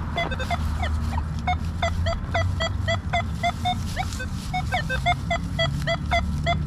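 Nokta Legend metal detector giving a rapid run of short beeps, about three or four a second, as the coil is swept back and forth over a target. The signal is jumpy, which can mean trash in the ground.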